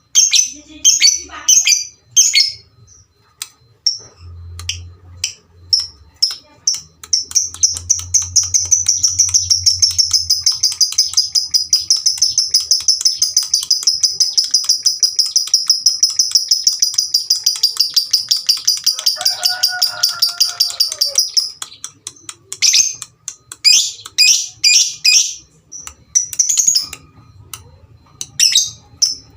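Lovebird singing: a few separate sharp, high chirps, then a long, fast chattering trill of high chirps (the 'ngekek') that runs unbroken for about fifteen seconds, then separate chirps again near the end.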